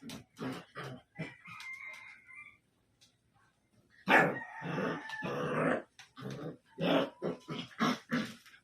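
A puppy barking and yelping in short repeated bursts, with one longer, louder howl about four seconds in.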